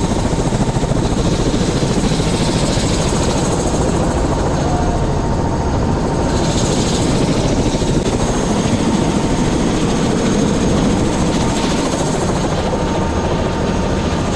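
Helicopter running steadily: a loud, even din of rotor and engine with a faint steady whine over it.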